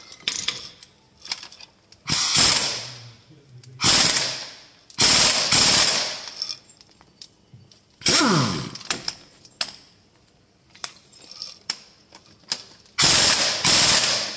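Cordless impact wrench on the crankshaft sprocket bolt of a TDI diesel engine, hammering in five short bursts of about a second each, with light tool clicks between them. One burst ends with the motor winding down.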